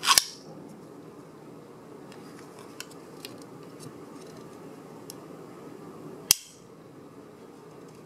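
Spring-loaded mini latch plunger on sheet-metal panels: two sharp metallic clicks about six seconds apart as the pin snaps into place, with a few faint ticks between them from the panels being handled.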